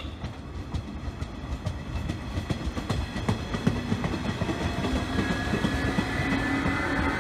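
JR East 719 series electric train running past on the far track, its wheels clacking over rail joints, with a steady motor hum that grows louder as the cars come alongside.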